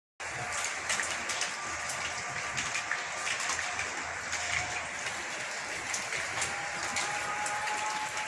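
Steady rain falling, with many separate drop hits ticking on hard surfaces; it cuts in abruptly just after the start.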